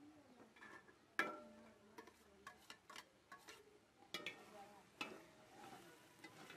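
Steel spoon clinking and scraping against a steel pot and plate while minced meat is stirred: a sharp clink about a second in is the loudest, followed by a run of lighter taps and another few clinks near four and five seconds.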